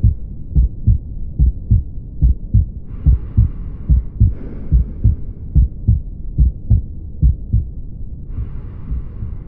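Heart sounds of mitral valve regurgitation: regular lub-dub beats with a murmur filling the gaps between them. The murmur comes from blood leaking back through a mitral valve that does not close completely.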